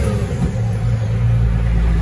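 Caterpillar 3306 diesel engine of a Ford Sterling truck running. At the start its revs and note drop and the level dips, then from about a second in it holds a steady, lower note.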